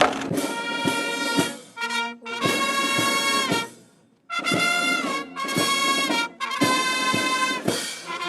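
Brass band music: long held brass chords played in phrases, broken by short pauses, the longest about four seconds in.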